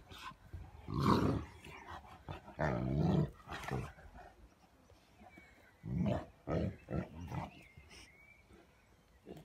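Large dogs, an English mastiff among them, growling in play while they wrestle: low growls and grunts in short bursts, a long one about three seconds in and a run of shorter ones after about six seconds.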